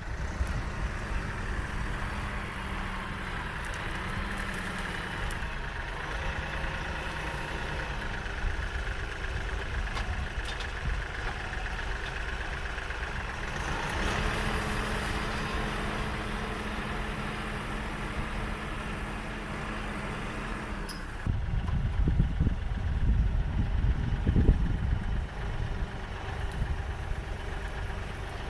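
Diesel tractor engine running, its pitch stepping up and down a few times. About three-quarters of the way through, a louder low noise joins it.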